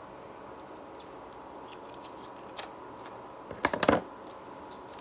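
Cardboard packaging being handled: a few faint clicks, then a short burst of crackling and rustling about three and a half seconds in.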